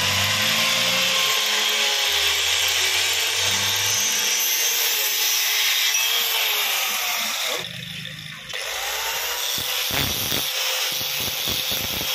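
Handheld angle grinder with a thin cutting disc running and cutting through a steel hydraulic pressure pipe: a steady whine over a grinding hiss. The sound dips briefly about eight seconds in, then resumes with uneven scraping strokes near the end.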